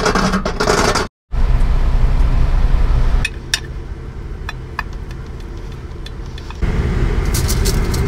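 Semi-truck diesel engine idling, a steady low rumble through the cab, its level jumping at cuts. Over it come a quick rattle of clicks in the first second and scattered clinks of a knife and fork on a glass baking dish.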